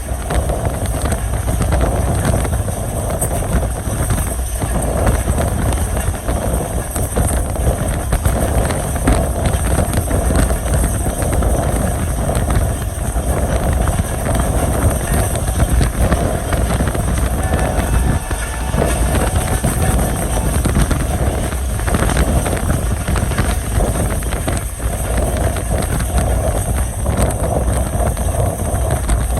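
Moving passenger train running on the rails, heard from on board: a loud, steady rumble and rattle of the wheels and coaches.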